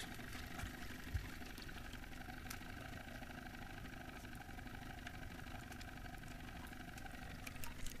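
Boat motor idling, a faint steady hum, with one soft low thump about a second in.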